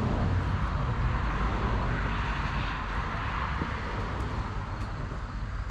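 Steady rumble of a car being driven, with engine and road noise heard from inside, swelling slightly a couple of seconds in.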